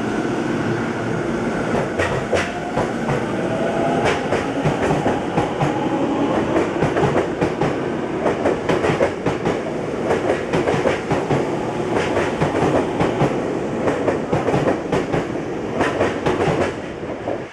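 Tokyo Metro 10000 series electric train pulling out and gathering speed past the platform: the traction motor whine rising in pitch over the first few seconds, under steady clicking of wheels over rail joints. The noise drops away right at the end as the last car goes by.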